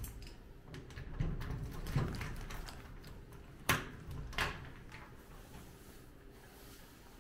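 Handling noises in a small room: a few soft knocks and bumps, then two sharp clicks a little past halfway, under a low rumble.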